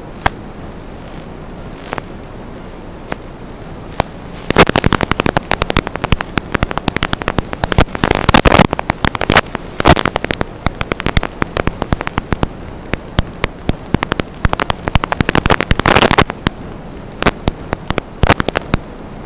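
Steady hiss of static, broken from about four and a half seconds in until about sixteen seconds by dense, loud crackling and popping, with a few scattered pops before and after. This is typical of an analog FPV video downlink's receiver audio as the signal breaks up.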